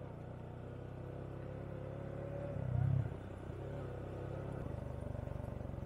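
Single-cylinder engine of a 2015 Suzuki Gixxer 155 motorcycle running steadily while riding, with a brief louder low swell about three seconds in.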